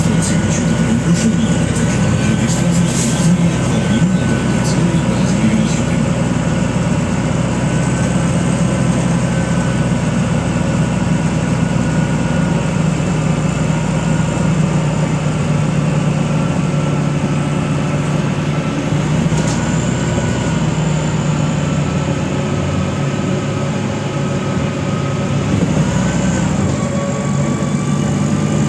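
Inside a MAZ-105 city bus under way: steady engine and road noise, with a faint whine that wavers in pitch and rises briefly near the end. There are a few light clicks in the first few seconds.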